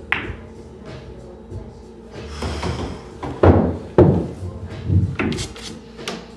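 Pool cue tip striking the cue ball with a sharp click, and the balls rolling on the cloth. An object ball is pocketed, followed by several heavy thuds and knocks, the loudest sounds here, and a few lighter ball clicks near the end.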